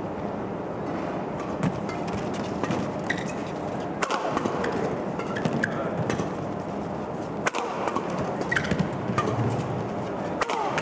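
Badminton doubles rally: several sharp racket strikes on the shuttlecock and short squeaks of players' shoes on the court, over a steady crowd hubbub in the arena.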